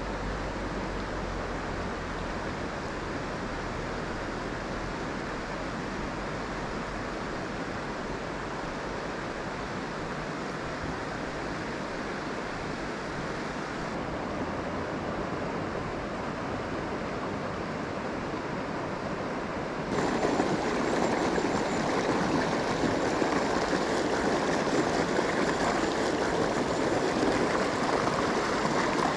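Water of a rocky mountain trout stream rushing over stones, a steady rush with no pauses. About two-thirds of the way through it steps up suddenly and turns louder, where the fast riffle is close by.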